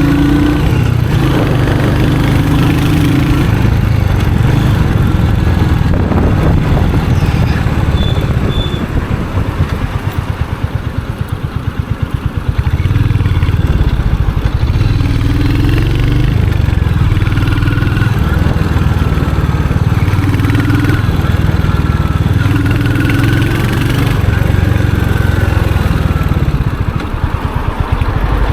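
Royal Enfield Hunter 350's single-cylinder engine and exhaust under way, pulling through the gears with rises in pitch. The throttle eases off for a few seconds about ten seconds in.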